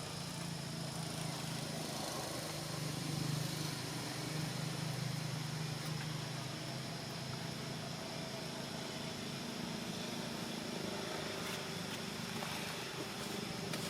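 A steady low engine hum over a background hiss, swelling for a few seconds between about two and six seconds in.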